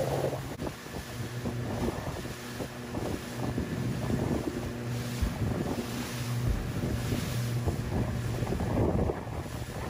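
A boat engine running with a steady low hum, under wind buffeting the microphone and the splash of choppy sea.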